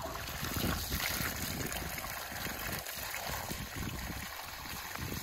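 Running water from a garden hose pouring into a stainless steel colander of vegetables and greens while hands rub them clean, a steady splashing rush.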